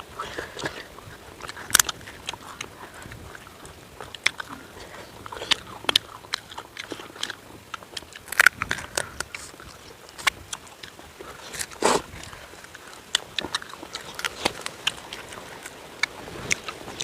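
A person biting and chewing food, with irregular crunches and smacks; two louder bites come about eight and twelve seconds in.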